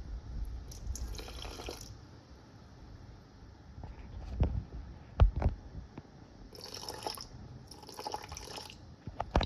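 Water pouring in short spells into a stainless steel mixing bowl, splashing onto the sourdough starter in it: once near the start, then twice more near the end. A few dull knocks come in the quiet middle.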